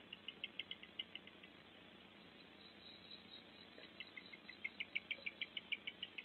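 A rapid series of short, high chirps, about seven a second, in two bouts: a short one at the start and a longer, louder one from about four seconds in. Beneath it is faint steady forest ambience with a thin high hum.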